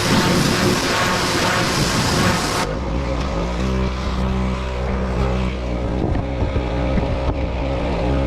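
Pressure washer spraying with a dense hiss, which cuts off abruptly about two and a half seconds in. The washer's motor then runs on with a steady low hum.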